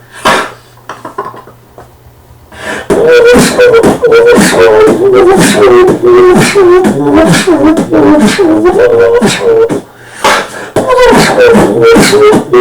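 Human beatboxing: sharp mouth-percussion hits over a hummed line that wavers up and down. It is almost silent for the first couple of seconds apart from a few soft strokes, then comes in full, with a short break about ten seconds in.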